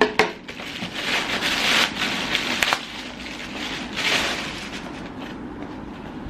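Parcel packaging being handled and torn open, with crinkling and rustling in uneven swells and a few sharp snaps.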